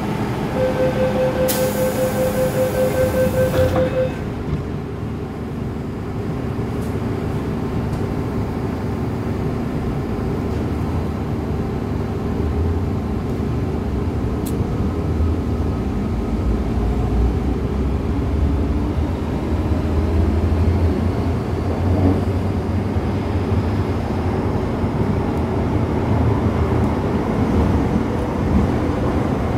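MTR M-Train electric metro train: rapid door-closing warning beeps with a hiss for about three seconds, then the train runs on with a steady low rumble that grows heavier as it gathers speed.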